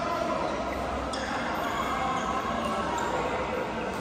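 Echoing sports-hall background of players' voices and play from neighbouring badminton courts, with one sharp racket-on-shuttlecock hit about a second in.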